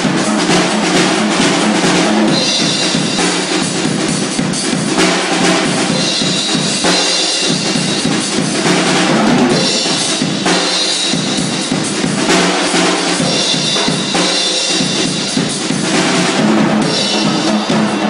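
Tama acoustic drum kit played in a fast solo: bass drum, snare and toms, with cymbals ringing in stretches every few seconds.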